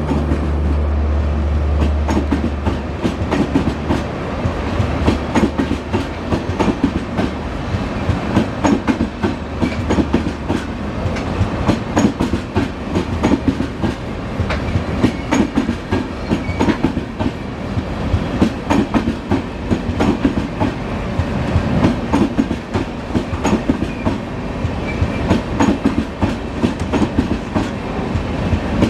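Express train coaches rolling past, wheels clattering over rail joints in a steady run of clicks over a rumble. A diesel locomotive's low drone fades out in the first few seconds.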